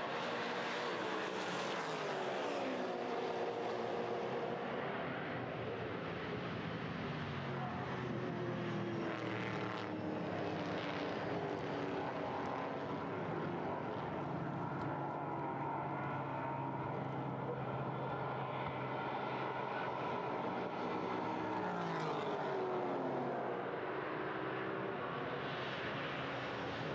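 Several V8 touring race cars running at race pace, their engine notes rising and falling in pitch as they accelerate, change gear and brake.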